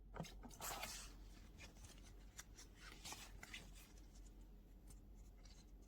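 Faint rustling and small clicks of something being handled, mostly in the first four seconds, over a steady low hum.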